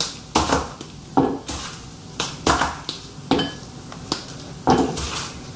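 Repeated knocks and clinks against a stainless steel mixing bowl as things are put into it, about seven sharp strikes spread unevenly, each ringing briefly.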